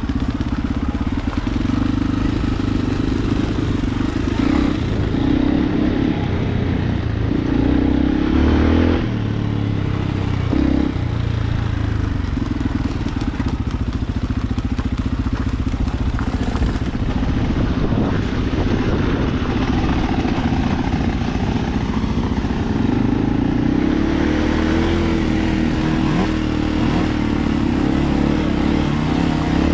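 Enduro motorcycle engine running continuously as it is ridden off-road, its pitch rising and falling with the throttle.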